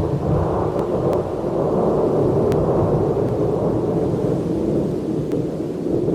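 Thunder: a long, loud, low rumble that carries on without a break.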